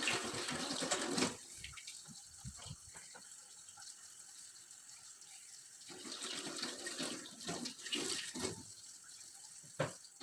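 Water running from a tap as hands are washed at a sink. It is loudest for about the first second and again from about six seconds in, with a few light knocks between.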